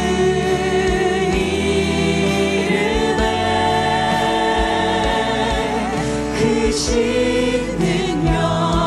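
Live contemporary worship music: several singers holding notes with vibrato over a band of keyboard, electric guitar, bass guitar and drums, with a steady kick drum.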